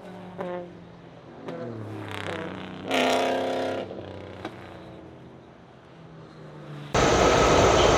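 Race car engines revving and passing, their pitch rising and falling with throttle and gear changes, loudest about three seconds in. Near the end the sound cuts abruptly to a much louder, steady roar.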